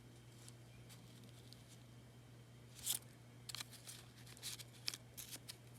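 Faint rustles and light taps of paper and cardstock craft pieces being handled and repositioned, a few short ones about three seconds in and more near the end, over a faint low steady hum.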